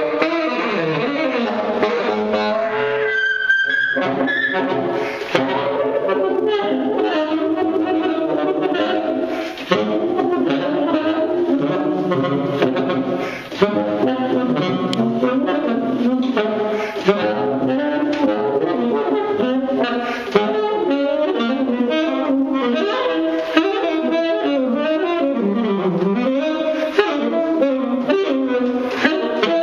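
Solo saxophone improvising, an unbroken run of constantly changing notes with a couple of brief breaths.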